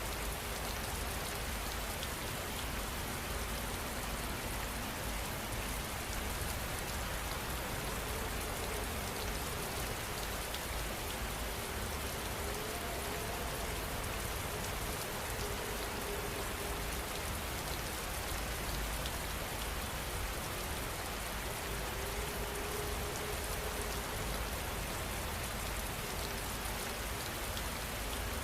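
Heavy rain falling steadily, with a dense hiss of drops and fine patters.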